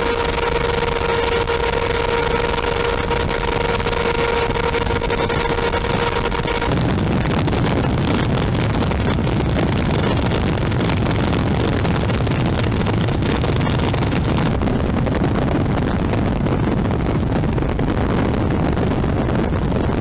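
Steady engine drone with wind noise, carrying a steady whine for the first seven seconds or so; after that the whine stops and a rougher low rumble carries on.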